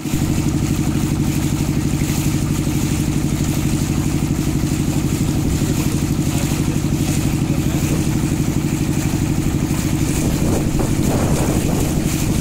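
Motorboat engine running steadily with a fast, even throb. Water swishing joins in near the end.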